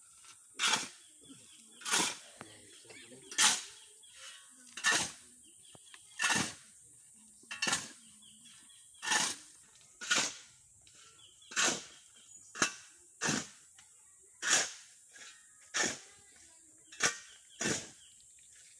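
A hand tool, such as a shovel, hoe or pick, striking and scraping into the ground at a steady work pace, about once every second and a half.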